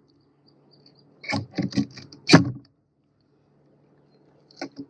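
Fillet knife cutting and scraping along a catfish's backbone and ribs on a plastic cleaning board: a quick cluster of short sharp scrapes and clicks about a second and a half in, the loudest near two and a half seconds, and one more click near the end.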